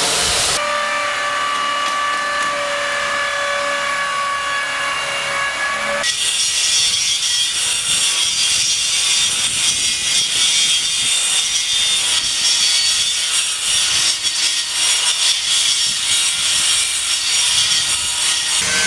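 Power tools at work on a building site in two cut-together clips. First comes a tool with a steady whine for a few seconds, then, after an abrupt cut, a harsh continuous grinding-and-scraping noise like a saw or sander working material.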